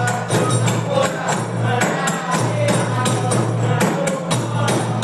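Accompaniment for the Acehnese Likok Pulo dance: hand-beaten frame drums keeping a quick, even beat under a singer's chant.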